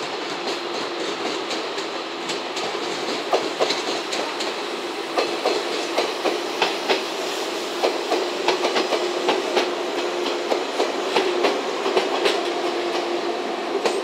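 JR West 115 series three-car electric train passing close by, its wheels clicking and knocking over rail joints and points, the clicks coming thicker from about three seconds in, over a steady hum.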